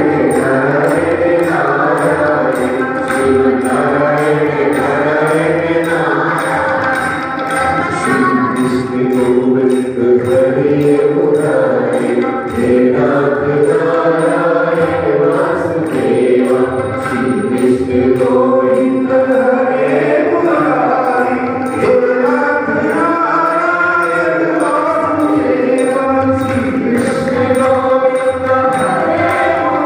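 A group of mixed voices singing a traditional devotional bhajan together, led over a harmonium with tabla accompaniment, kept to a steady beat.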